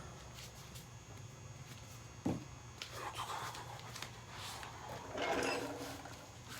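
Faint handling noises in a quiet garage: a single knock a little over two seconds in, and a longer rustle about five seconds in.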